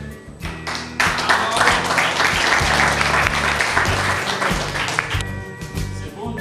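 A round of applause over background music; the clapping starts about a second in and stops about five seconds in.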